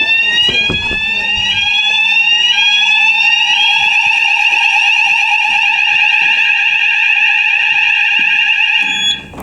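Electronic fire alarm sounder going off in a fire alarm system test. It gives a rising tone that repeats about once a second, changes to a continuous tone about three and a half seconds in, and cuts off near the end.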